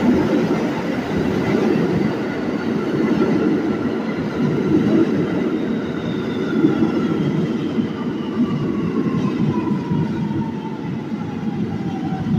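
R211 subway train pulling into the station, its wheels rumbling along the rails. Over the second half a whine falls steadily in pitch as the train slows.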